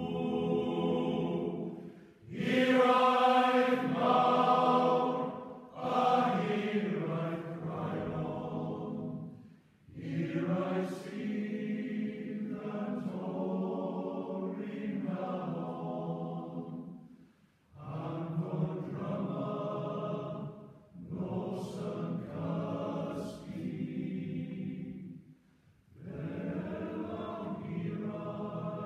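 Welsh male voice choir singing together in several long phrases, each broken off by a brief pause.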